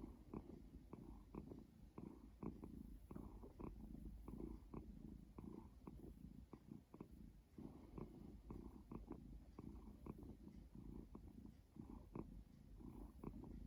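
Faint cat purring mixed with heavy breathing at rest, a low pulsing rumble of about three beats a second that swells and ebbs with each breath.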